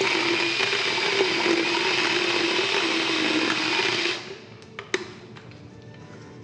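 Motorized equine dental float, a guarded rotary carbide-chip disc, grinding down a horse's overlong lower cheek tooth: a steady high whine over grinding noise. It stops suddenly about four seconds in, followed by a few faint clicks.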